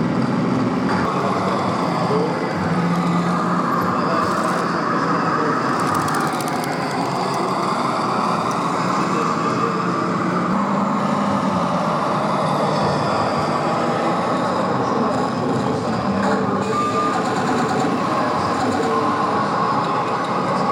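1/6-scale RC model tanks running: a steady mechanical vehicle noise with a low engine-like hum that steps up and down in pitch now and then.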